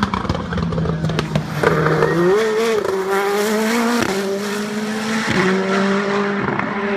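Pro Mazda open-wheel race car accelerating away, its engine note climbing and dropping sharply at two upshifts, about four and five seconds in.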